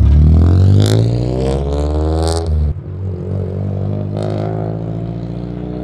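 A modified Toyota AE86 Trueno race car's engine pulls away hard, its revs climbing. About 2.7 s in the revs drop suddenly as it shifts up, then climb again, and the engine note fades as the car draws away.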